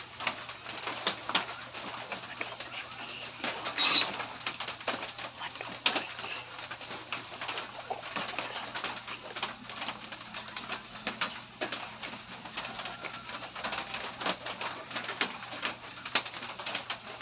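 Close-up eating sounds: wet chewing, lip-smacks and mouth clicks as noodles and rice are eaten by hand, with a sharper smack or slurp about 4 seconds in. A steady low hum runs underneath.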